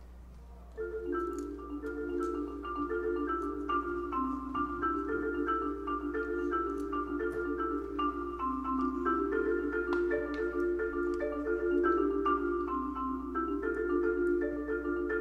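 Solo marimba, struck with mallets, coming in about a second in and playing a fast, continuous stream of notes, with lower notes and higher notes sounding together.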